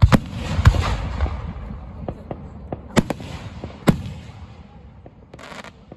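Aerial firework shells bursting: a loud bang right at the start followed by a long decaying rumble and crackle, then two more sharp reports about three and four seconds in.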